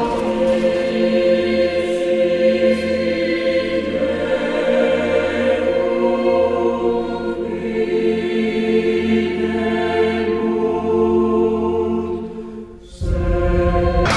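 Background music: a choir singing long held chords. The choir dips briefly near the end, then a fuller, louder section cuts in.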